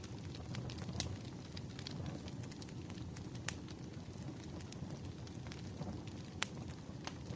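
Firewood burning: a steady low rumble with scattered sharp crackles and pops, a few louder pops about one, three and a half, and six and a half seconds in.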